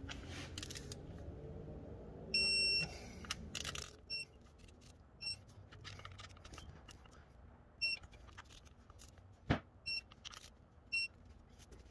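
Snap-on electronic torque wrench beeping as a water pump bolt is tightened: a half-second beep a little over two seconds in, then several short beeps spaced a second or so apart, with scattered clicks between them.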